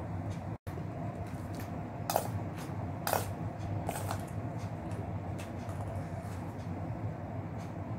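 A metal spoon clinking a few times against a steel bowl while someone eats milk-soaked puffed rice from it, the sharpest clinks about two and three seconds in, over a steady low hum.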